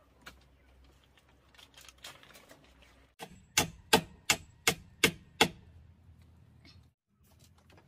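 A hammer striking six times in quick succession, about three blows a second, as a plastic tarp is fastened to a bamboo wall frame. Faint tarp rustling comes before the blows.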